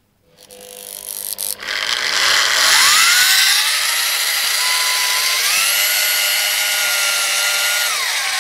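Electric drill spinning a Fisher & Paykel washing-machine motor that is being run as a generator. The drill's whine rises in pitch over the first few seconds to a steady high speed, steps up once more about halfway through, and drops back near the end.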